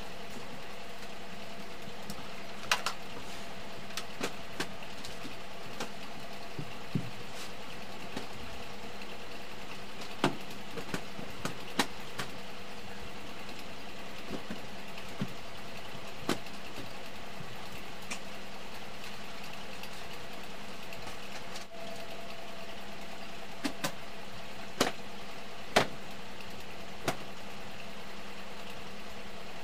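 Scattered sharp knocks and taps as a wooden bed and its bedding are handled and a blanket is shaken out, over a steady low hum.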